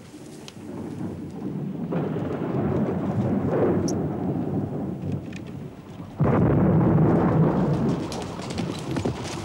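Deep rumble of noise that builds about two seconds in, eases, then rises suddenly again about six seconds in before fading.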